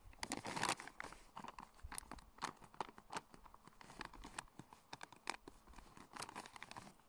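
Plastic freeze-dried meal pouch crinkling and crackling in irregular bursts as it is pressed shut along the top and folded over.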